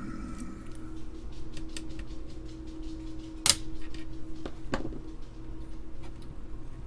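Small plastic clicks and taps from working at the keys and space bar of a vintage Amiga keyboard, with one sharp click about halfway through, over a steady low hum.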